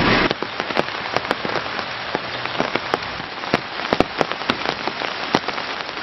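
Rain falling, with many drops tapping sharply and irregularly close by over a steady hiss. A louder rush in the first fraction of a second cuts off abruptly.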